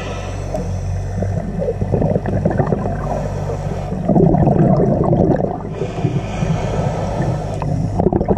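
Scuba diver breathing through a regulator underwater. A gurgling rush of exhaled bubbles comes about four seconds in, followed by the hiss of the next breath in.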